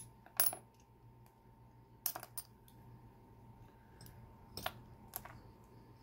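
Small metal parts of a Mul-T-Lock Interactive padlock clicking and clinking as the lock is taken apart by hand: one sharp clink about half a second in, a quick run of clicks around two seconds, and two lighter clicks near the end.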